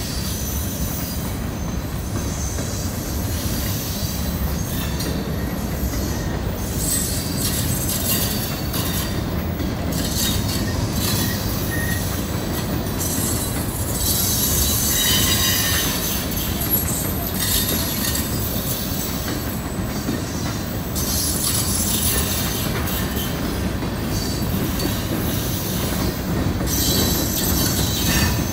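Freight train of hopper cars rolling past: a steady rumble of wheels on the rails, with high-pitched wheel squeal that comes and goes.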